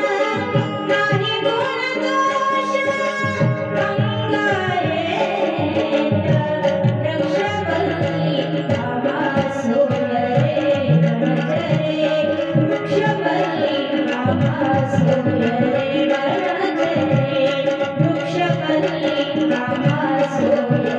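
Marathi devotional song (abhang) with a sustained melody and a singing voice over steady tabla drumming.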